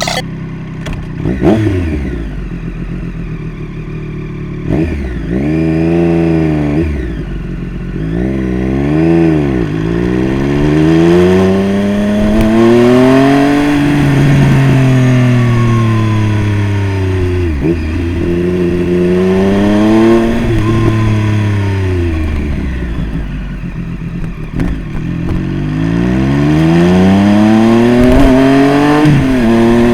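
Triumph Street Triple RS inline three-cylinder engine through a Jeskap full exhaust with K9x silencer: short, sharp rev blips in the first ten seconds, then longer pulls where the pitch climbs and falls away again, several times over.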